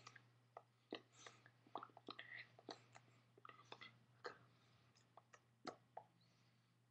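Faint, irregular clicks and soft mouth noises, like lip and tongue sounds, scattered over a low steady hum, and thinning out near the end.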